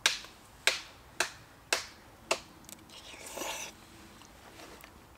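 Metal spoon clinking against a metal mug: five sharp clinks about half a second apart, each with a brief ring, then a short rustling noise about three seconds in.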